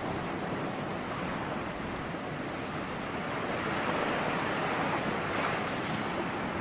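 Ocean waves washing onto a shore, a continuous rush of surf that swells and eases gently.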